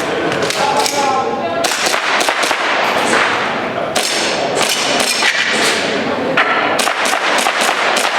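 Airsoft pistols firing: a series of sharp clacks at an irregular pace, with voices in the background.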